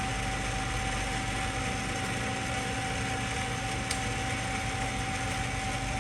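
Hardinge HLV-H tool room lathe running steadily with its power cross feed engaged at a slowed rate, a constant hum with a steady whine tone. One faint click about four seconds in.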